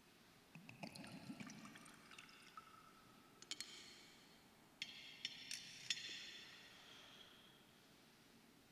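Water poured softly into a metal chalice, then a few sharp clinks of metal altar vessels that ring briefly, the loudest a little after the middle: the priest purifying the chalice and vessels after communion.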